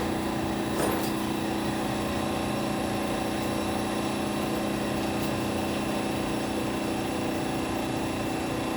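Edwards xDS35iE dry scroll vacuum pump running steadily with an even hum and hiss, its new tip seals wearing in, and it now sounds okay. There is a brief light knock just under a second in.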